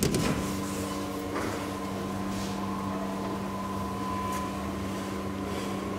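DEVE hydraulic elevator running with a steady hum of several constant tones, after a knock right at the start.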